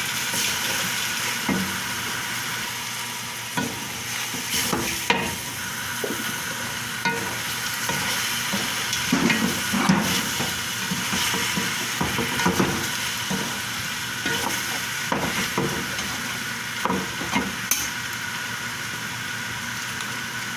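Chicken afritada sizzling as it fries in a pan, its cooking liquid mostly cooked off, while it is stirred. Short scrapes and knocks of the stirring utensil against the pan come now and then over a steady sizzle.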